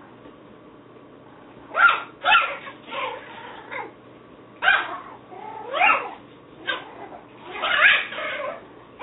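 Yorkshire terrier puppies yipping and whining: a string of short, high-pitched cries that slide in pitch, with the longest about eight seconds in.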